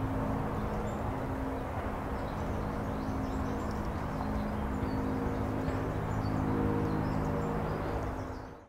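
Steady low rumble of an Antares rocket after liftoff, with faint bird chirps over it. It fades out at the very end.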